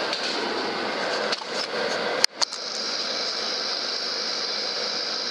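Steady background hiss and hum. About two and a half seconds in it drops out briefly, then there is a single sharp click.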